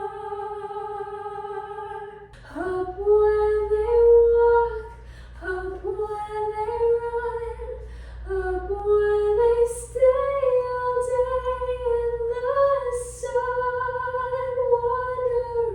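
A woman singing a slow melody with little or no accompaniment. She opens on one long held note, then sings phrases of sustained, gliding notes from about two seconds in.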